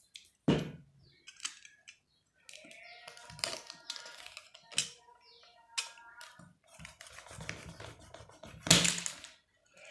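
Snap-off utility knife blade cutting through the plastic seal in the threaded neck of a silicone sealant cartridge: a click or two, then repeated squeaky scraping strokes of blade on plastic, with one louder scrape near the end.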